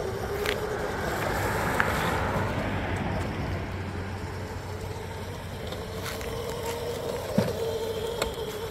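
Child's go-kart motor running with a steady whine that wavers slightly as it drives. A single knock comes about seven seconds in.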